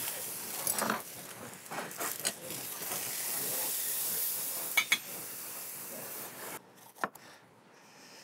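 Kitchen cooking sounds: a steady hiss from a pot on the stove, with scattered sharp knocks of a knife and utensils on a cutting board and metal bowls. The hiss cuts off suddenly near the end, leaving a few isolated taps.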